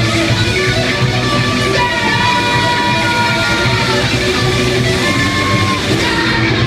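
Heavy metal band playing live: distorted electric guitars over bass and drums in a wordless section of the song, with long held notes bending in pitch on top.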